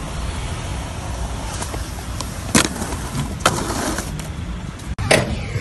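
Skateboard wheels rolling on concrete over steady road traffic, with sharp clacks of the board about two and a half and three and a half seconds in and a few fainter ones before.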